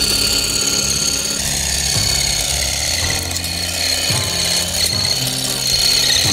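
Worx WG801 20 V cordless grass shear running and cutting long grass, with a steady high motor-and-blade whine.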